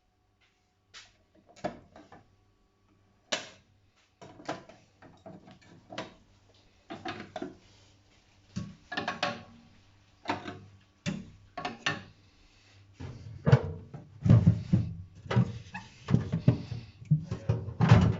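Items being moved about and set down inside an Atlant refrigerator: irregular knocks, clicks and rattles, getting busier and heavier in the last few seconds.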